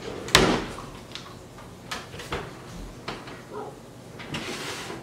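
Oven door being opened and a baking tray handled inside: one sharp clunk about a third of a second in, then several lighter knocks and metal clatters.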